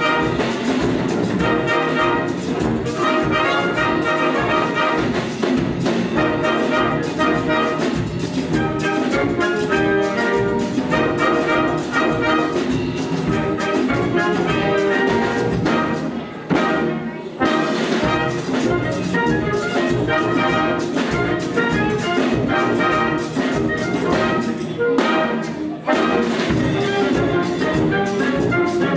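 A full wind band playing: clarinets, flutes, saxophones, trumpets, trombones, tubas and drums together, with a steady beat and the brass prominent. The band eases off briefly a little past halfway, then comes back in.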